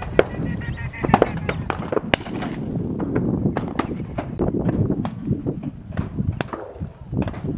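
Shotguns of many duck hunters firing at irregular intervals, some shots close and sharp, most further off. The shots come as a steady scatter of more than a dozen reports, with a few louder ones in the first two seconds.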